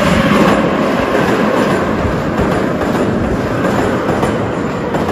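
Metro train passing at speed right alongside in the tunnel: a loud, steady rush of its wheels on the rails, easing slightly near the end as the last cars go by.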